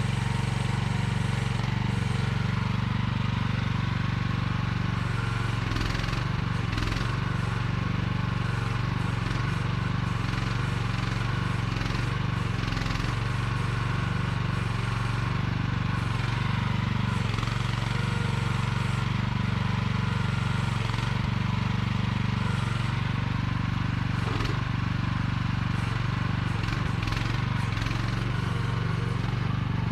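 AGT QH12R one-ton mini excavator's engine running steadily under work, with a few short knocks and clanks from the machine.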